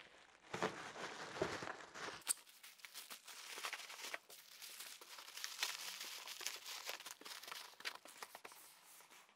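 Plastic bubble wrap crinkling and rustling as it is wrapped around a small cardboard box and packed into an outer carton, with many sharp little crackles.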